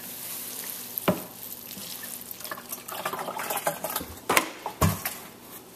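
Water sprinkling from a watering can's rose onto shredded newspaper bedding in a plastic tote, a steady splashing patter that eases off near the end. A few sharp knocks, one about a second in and two near the end.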